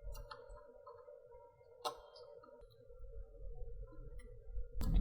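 Faint scattered clicks and taps of small parts being handled during a PS4 teardown, with a sharper click about two seconds in and another just before the end, over a steady faint hum.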